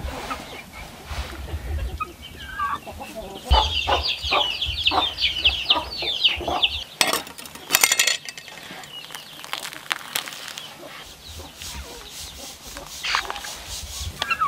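Hens clucking, with a quick run of high cackling calls a few seconds in and scattered clucks later. A few sharp knocks around the middle, a cleaver on the wooden chopping board as the goose is cut open.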